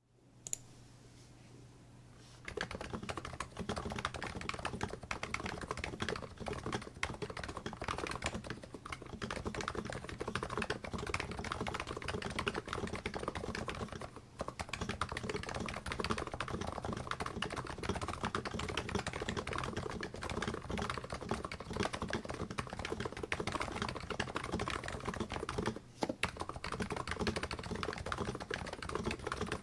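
Continuous typing on a Plum NIZ 87 electrostatic capacitive keyboard fitted with original 45g Topre rubber domes: a fast, steady stream of keystrokes. The typing starts about two seconds in and pauses briefly twice, around the middle and near the end.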